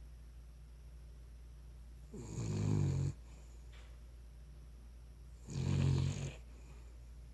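Cavalier King Charles Spaniel snoring: two snores, each lasting about a second, about three and a half seconds apart.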